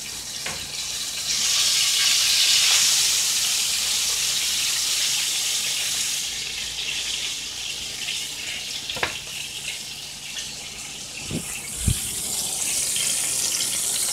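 Fish fillets shallow-frying in hot oil in a skillet: a steady sizzle that grows louder about a second and a half in, as the fillets are turned over. A few sharp clicks of the metal spatula and fork against the pan, the loudest near the end.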